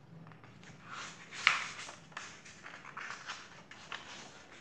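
Paper rustling as the pages of a paperback book are handled and turned, in short irregular swishes, with one louder sharp rustle about a second and a half in.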